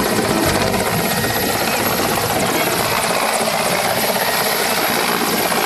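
Mil Mi-17 military transport helicopter flying low on its landing approach: steady, rapid rotor-blade chop over heavy engine noise.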